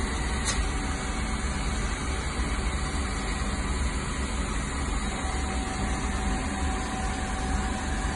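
A steady mechanical hum with hiss, with a single short click about half a second in.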